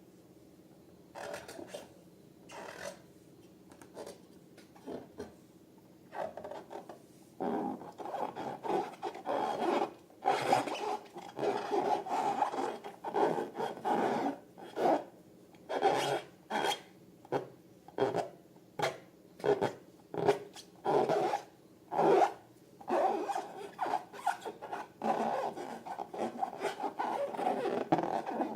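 Balloons and slime being handled by hand, making a run of short rubbing and scraping strokes. The strokes are sparse and faint at first, then come quicker and louder from about seven seconds in.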